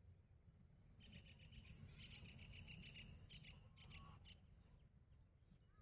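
Near silence: a faint outdoor background with quick high-pitched chirping between about one and four seconds in.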